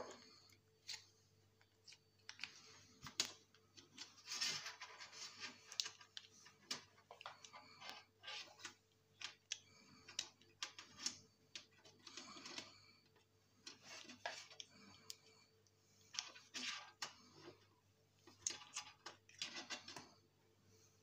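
Faint, irregular clicks, taps and scrapes of a screwdriver and fingers working a switch and its mains cable loose from a sheet-metal electronics chassis, over a faint steady hum.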